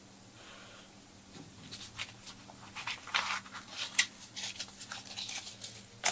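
Crinkling and rustling of a crumpled paper banknote being pulled out and unfolded by hand: an irregular run of sharp crackles that starts about a second and a half in and grows busier and louder toward the end.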